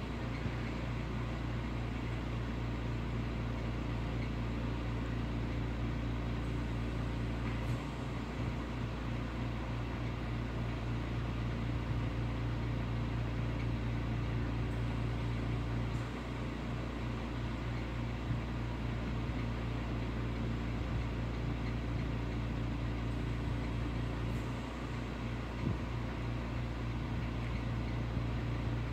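A steady low hum under an even hiss, with no speech.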